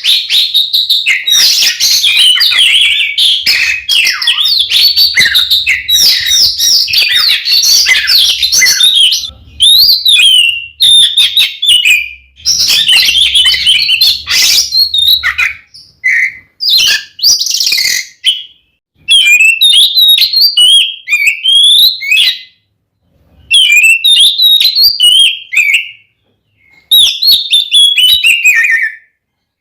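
Oriental magpie-robin (kacer) singing loudly in a full, combative song: a dense, unbroken run of varied whistles, trills and chatter for about the first nine seconds. After that it sings shorter phrases broken by brief pauses.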